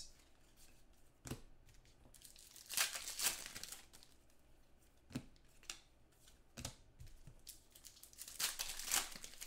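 Football trading card packs being torn open and their wrappers crinkled, with cards handled: a few short, quiet rustling tears and light clicks, loudest about three seconds in and again near the end.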